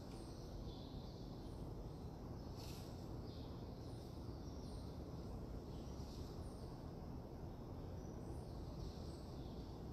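Quiet room tone: a steady low hum with faint, short high-pitched chirps repeating about once a second.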